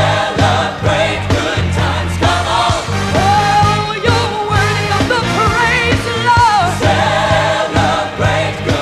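Upbeat gospel song: a choir and a solo singer with vibrato over a band with bass and drums keeping a steady beat.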